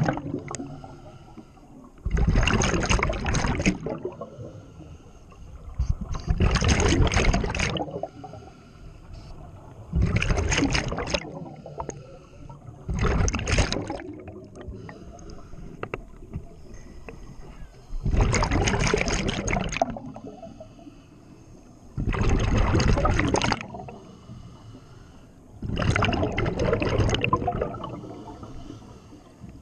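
Scuba diver breathing through a regulator underwater: a loud rush of exhaust bubbles about every four seconds, seven times, with a quieter hiss between breaths.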